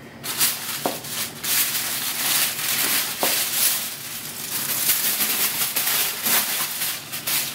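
Aluminium foil being pulled off a roasting pan and crumpled up: continuous crinkling and crackling with many sharp crackles.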